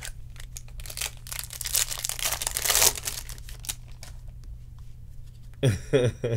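Baseball trading cards being flipped through and slid across one another in the hands: a run of small clicks and flicks, with a longer papery swish about two seconds in.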